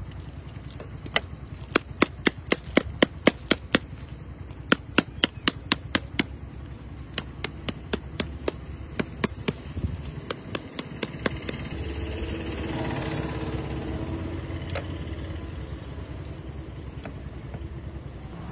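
A wooden rolling pin knocking down hard and repeatedly on a packet on a wooden chopping board: sharp knocks in quick runs of about three a second through the first ten seconds. After that a broad rush of noise swells and fades.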